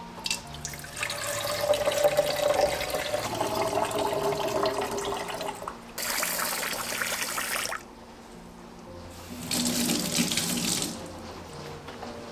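Cloudy rice-rinse water pouring and splashing from a stainless steel bowl into a plastic container in a stainless sink for about five seconds. Then a kitchen faucet runs into the bowl of rice in two short bursts of about two seconds each, refilling it for the next rinse.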